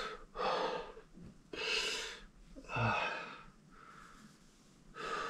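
A man breathing heavily in a run of loud, gasping breaths, about a second apart, with a longer pause near the end before one more breath.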